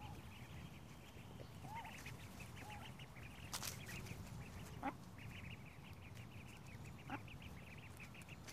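Ducklings peeping faintly in quick, high-pitched runs, with a few lower duck calls among them.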